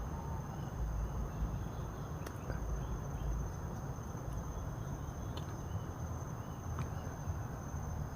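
Forest ambience: an insect trills steadily at one high pitch, with a few faint bird chirps and scattered small ticks over a low rumble.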